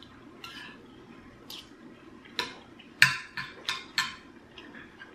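Metal fork clinking and scraping against a ceramic bowl as it picks up ground beef: a handful of sharp clicks in the second half, after a quieter first half.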